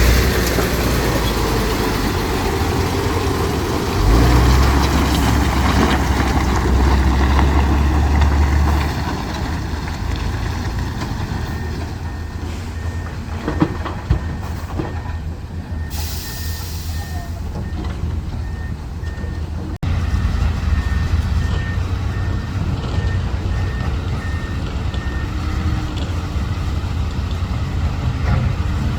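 Heavy diesel engines of dump trucks and excavators running, with a deep rumble that swells for several seconds early on and then settles. A short air-brake hiss comes about halfway through, and a reversing alarm beeps steadily and faintly through the middle part.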